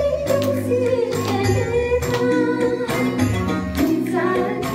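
Women singing a song into microphones, amplified over backing music with a steady percussive beat.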